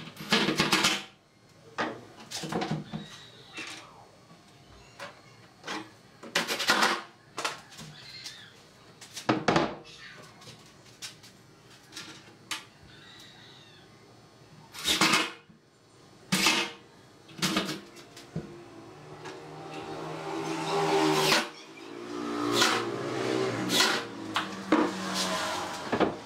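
Cordless drill driving screws into the cabinet's door hinges in short bursts of under a second, several seconds apart. In the last several seconds there is a longer, louder sound with a wavering pitch.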